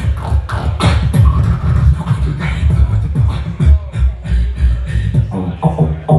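Beatboxing into a handheld microphone: a heavy, deep bass line under quick percussive clicks, turning to a steadier buzzing bass near the end.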